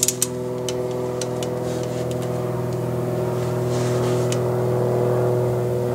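A ratchet wrench clicking as it snugs up the steering gearbox mounting bolts: a quick run of clicks at the start, then scattered single clicks. Under it runs a louder, steady mechanical hum.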